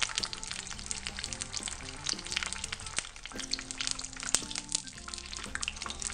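Belyashi deep-frying in hot oil in a frying pan: a steady dense crackle and sizzle. A spatula knocks once against the pan a little past four seconds in as the patties are turned.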